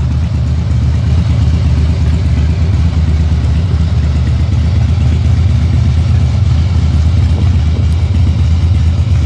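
Harley-Davidson FXSB Breakout's V-twin engine idling steadily, with an even, low exhaust note and no revving.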